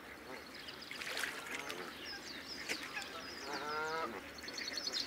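A waterfowl gives one honking call about three and a half seconds in, over the repeated high chirping of small birds.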